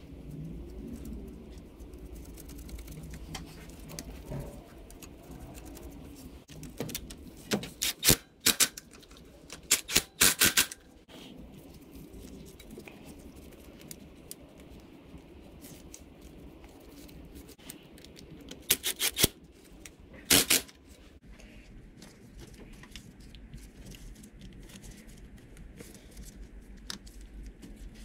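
Short bursts of rapid clicking and rattling, four times, from hand tools and metal and plastic parts as a fuel rail with its injectors is fitted back onto an engine's intake manifold.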